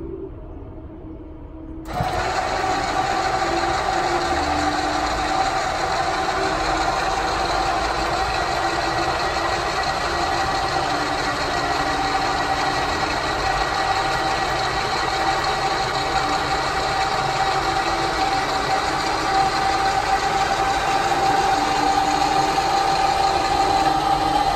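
Autolift electric stabilizer legs on a motorhome, their electric motors starting about two seconds in and running with a steady whine as they drive the legs. The sound grows slightly louder near the end.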